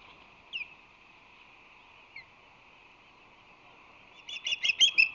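Osprey calling: two short, falling chirps about a second and a half apart, then, about four seconds in, a fast run of loud, sharp whistled chirps.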